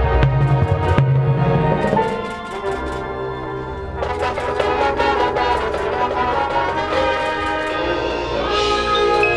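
Marching band brass playing held chords over drum hits. It drops to a softer passage about two seconds in and builds back up about four seconds in.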